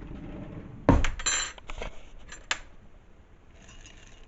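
Kitchen utensils and dishes clattering: a sharp clink about a second in, then a few lighter metallic clinks over the next second and a half, as of a spoon knocking against a bowl.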